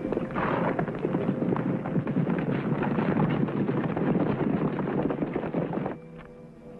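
Hoofbeats of several horses at a gallop, a dense clatter that stops abruptly about six seconds in.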